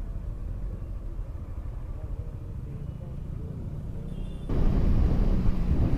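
Motorcycle riding on the open road, heard through a helmet-mounted microphone: a steady low engine and road rumble. About four and a half seconds in, a louder rush of wind noise comes in suddenly.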